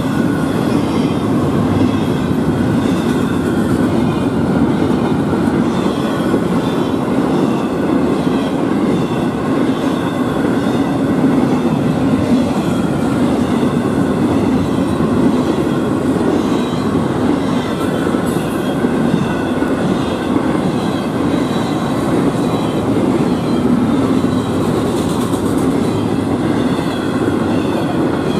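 Florida East Coast intermodal freight train cars rolling past a grade crossing: a steady, loud rumble and clatter of steel wheels on the rails.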